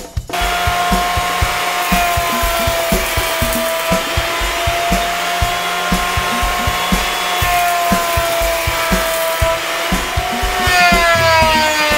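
Delta benchtop thickness planer running with a steady high whine as it planes a walnut and maple board; the pitch dips near the end. Background music with a steady beat plays underneath.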